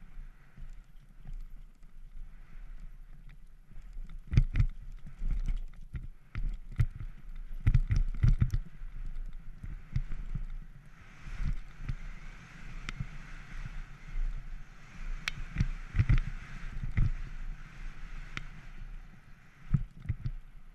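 Downhill mountain bike ridden fast over a dusty dirt track: the tyres rumble over the ground while bumps and landings set off repeated knocks and rattles from the bike. A steady hiss of tyres on loose dirt joins in from about eleven seconds until near the end.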